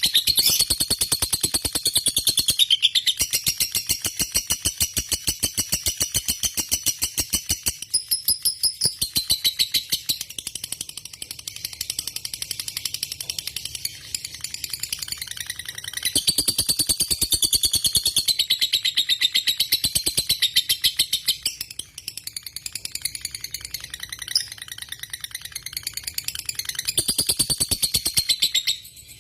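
Lovebird singing a long, rapid, high-pitched chattering stream of chirps, kept up almost without a break for nearly half a minute, with a few short dips before it stops near the end.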